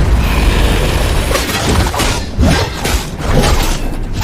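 Loud crash-and-shatter combat sound effects: a rushing, noisy blast in the first second or so, then a series of sharp impacts.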